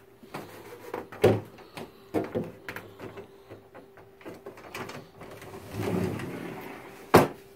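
Wooden closet door being handled and opened. A few knocks come in the first couple of seconds, a scraping rumble about six seconds in, and a sharp knock near the end.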